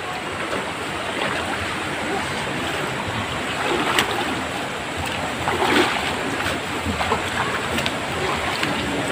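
Steady rushing of a stream in flood, with splashing as a person wades through knee-deep water.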